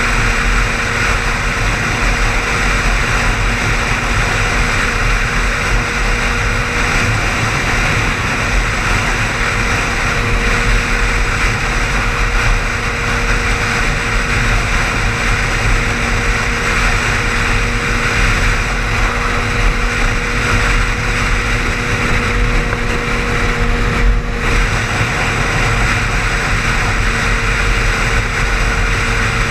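Steady road and engine noise of a car driving at highway speed, heard from inside the cabin, with a constant low hum running under it.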